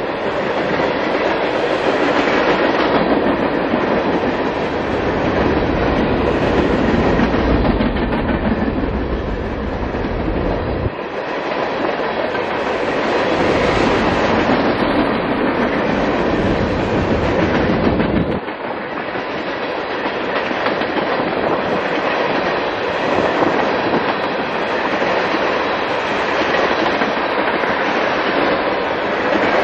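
Freight cars of a long CSX train rolling past close by, a steady rumble with wheels clattering over the rail joints. The deep part of the rumble drops away abruptly twice, about a third and two thirds of the way through.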